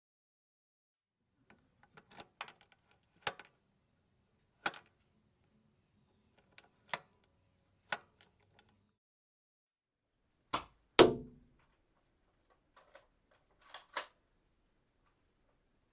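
Weapon-handling sound effects: a run of separate sharp clicks and clacks, one every second or so, with one much louder impact about eleven seconds in that rings on briefly, and a quick double click near the end.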